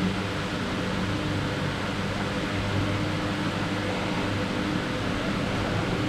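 A steady machine hum: even hiss under a low, unchanging drone.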